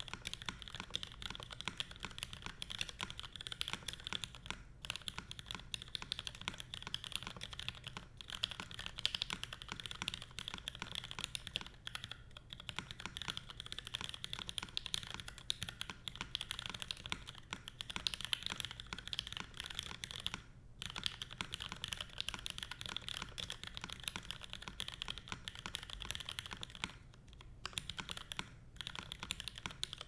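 Continuous typing on a Merisi Works Sessantacinque 65% custom mechanical keyboard: top-mounted, carbon fibre plate, no foam, lubed Cherry MX Black Hyperglide linear switches and CRP PBT keycaps. The key strikes come in a dense, steady stream, broken a few times by brief pauses.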